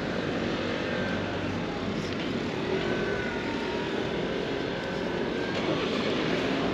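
Steady city street noise of passing motor traffic, with a few faint tones drifting over it.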